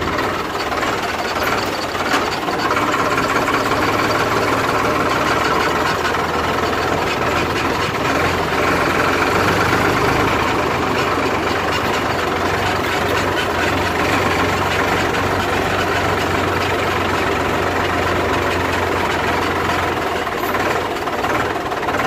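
Ford 3600 tractor's diesel engine running steadily, with no change in pace.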